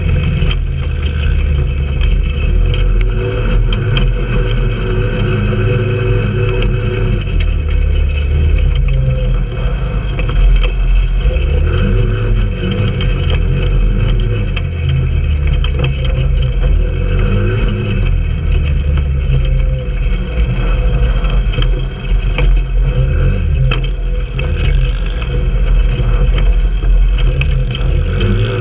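Trailmaster 150 go-kart's small single-cylinder four-stroke engine running hard over rough dirt, its pitch rising and falling as the throttle is worked, over a heavy steady rumble.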